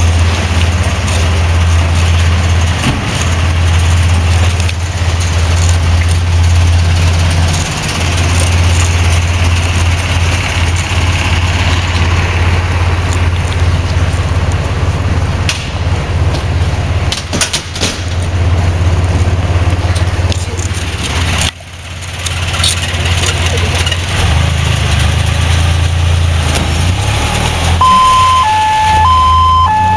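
Fire truck's diesel engine running with a deep, steady drone. Near the end its two-tone siren starts, alternating between a higher and a lower note, each held for just over half a second.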